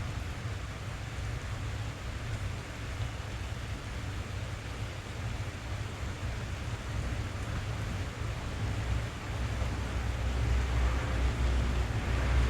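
Rain drumming on a car's roof and glass, heard from inside the cabin as a steady hiss with a deep low rumble beneath. It grows louder about ten seconds in.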